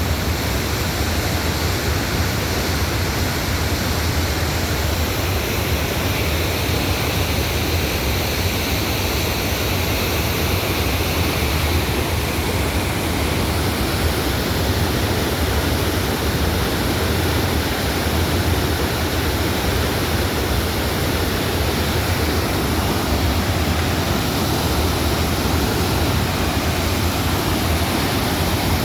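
Waterfall roaring steadily: a constant heavy rush of falling water with a deep rumble underneath.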